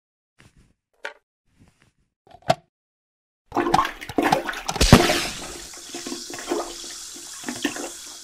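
Toilet flushing: a loud rush of water starts about three and a half seconds in, with a heavy thump near five seconds, then thins to a hiss that fades out. Two light knocks come before it.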